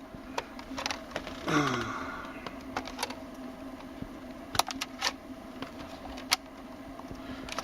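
Scattered small plastic clicks and taps as vacuum lines are pushed out of a plastic climate-control vacuum connector by hand, over a steady low hum. There is a short vocal sound about a second and a half in.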